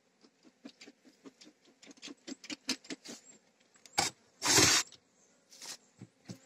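Carniolan honeybees over an open hive: a run of short buzzes and light ticking patter that grows busier. About four seconds in comes a sharp knock and then a loud, short rushing burst.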